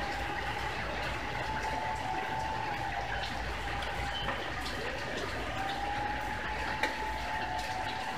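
Steady rush of water, with a faint, slightly wavering whine over it and a few light ticks.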